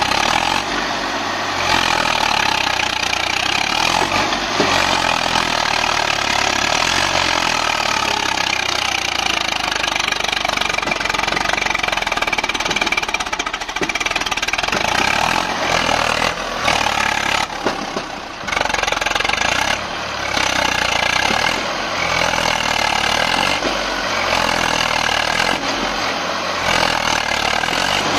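Tractor diesel engine running hard under load as it pulls a loaded soil trolley through deep mud. The pitch wavers up and down, with a short easing off about two-thirds of the way through.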